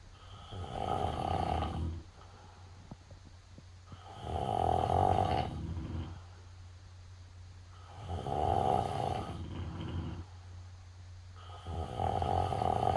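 Snoring: four long, rasping snores, each lasting about two seconds and coming roughly every four seconds, with quieter stretches in between.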